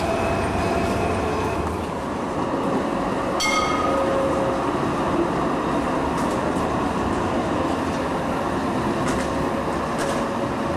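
Alstom TFS low-floor tram running along a curving street track: a steady noise of wheels on rail and motors mixed with street sound, with a brief high-pitched ring about three and a half seconds in.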